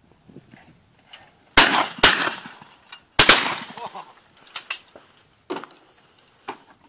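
Shotgun shots at a clay flush: two reports about half a second apart, a third about a second later, each with a ringing tail, followed by several fainter sharp knocks.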